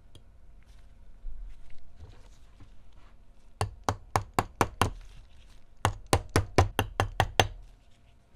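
Two quick runs of sharp knocks, about five a second: six, then after a short pause about eight more, with a couple of softer knocks before them.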